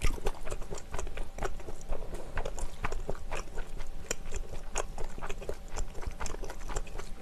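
Close-miked chewing of a mouthful of mala stir-fry with spinach: irregular mouth clicks several times a second.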